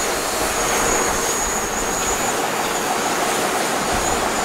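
Quadcopter camera drone's propellers whirring steadily in flight, a thin high whine over an even hiss.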